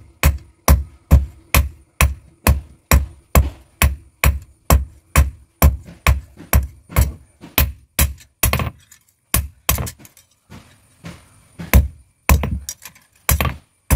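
Hand hammer beating a red-hot steel knife blade on an iron anvil block. Sharp metal-on-metal blows come in a steady rhythm of about two and a half a second, break off briefly past the middle with a few uneven strikes, then pick up the rhythm again near the end.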